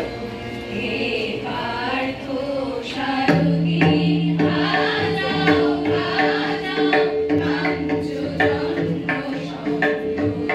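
A group of women singing a song together in unison over a held drone, with drum strokes coming in about three seconds in and keeping a steady rhythm.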